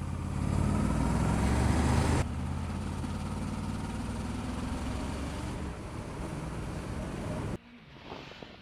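Motorcycle engine running under way, with wind and road noise. The sound changes abruptly about two seconds in and drops much quieter near the end.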